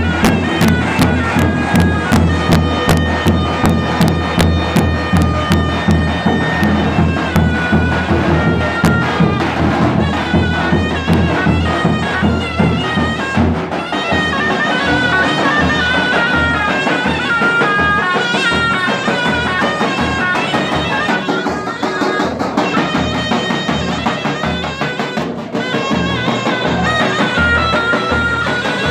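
Zurna, the Turkish double-reed shawm, playing a shrill ornamented melody over two davul bass drums beating a steady rhythm. About halfway through the drumming changes to a looser, more broken pattern.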